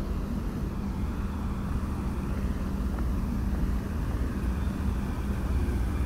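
Steady low rumble of vehicle engines and traffic, with a constant engine hum underneath.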